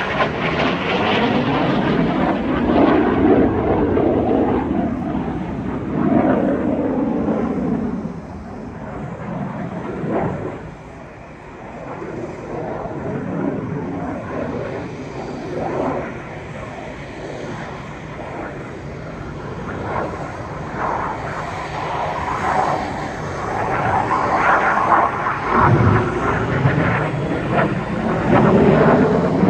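Jet aircraft flying past at an air show, engine noise swelling and fading as they pass. It is loud for the first several seconds, drops to a lull about ten seconds in, and builds again to a loud pass near the end.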